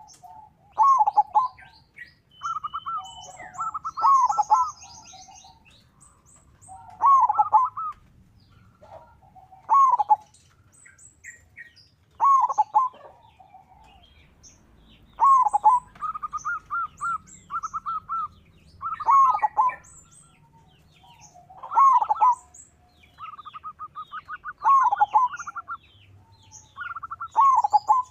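Local perkutut (zebra dove) singing, repeating its cooing phrase about every three seconds; some phrases end in a fast run of repeated notes. Fainter high-pitched chirps run over the cooing.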